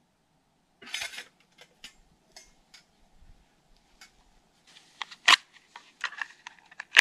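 Clicks, knocks and short scrapes of small metal camping gear being handled beside a small metal stove, with rustling on dry pine needles, starting about a second in; a sharp click about five seconds in is the loudest.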